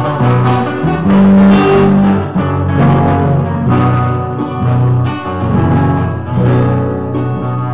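Acoustic guitar being played, with plucked low bass notes under chords and melody notes.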